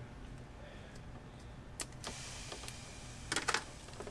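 Faint handling noise of insulated wires being pulled apart from a wiring bundle by hand: a light click about two seconds in, then a soft rustle and a few quick clicks near the end, over a low steady hum.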